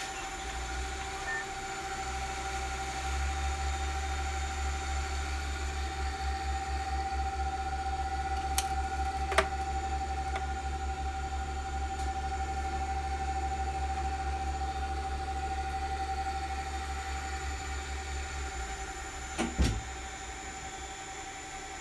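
Siemens servo motor and its SIMODRIVE 611 single-axis drive module (6SN1123-1AA01-0FA1) running on test, with a steady low hum and a constant whine. There are two sharp clicks about nine seconds in, and a knock shortly before the end, where the hum dies away.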